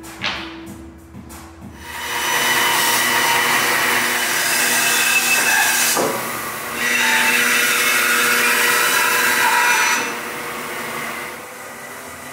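Bandsaw cutting through a hardwood board: a steady cutting noise begins about two seconds in, breaks off briefly around the middle, then resumes and drops to a lower level near the end.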